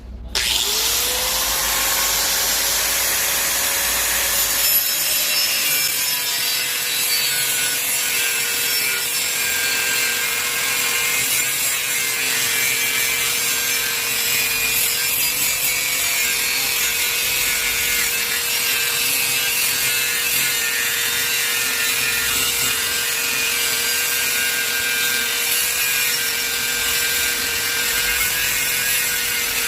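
Angle grinder switched on, its motor spinning up in a quick rising whine, then running steadily while its disc cuts, with a harsh high grinding hiss over a constant motor whine.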